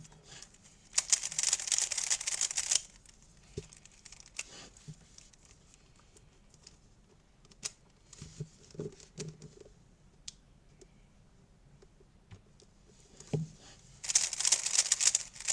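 A GAN 356 RS 2 speed cube's plastic layers being turned rapidly in two short rattling bursts, about a second in and again near the end, with faint clicks and taps in between while the cube is being lubed.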